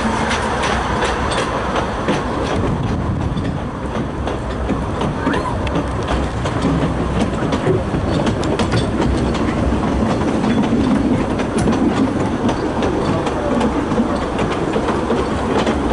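Narrow-gauge steam train running, heard from one of its carriages: a steady rumble of the coaches on the track, with wheels clicking over rail joints throughout.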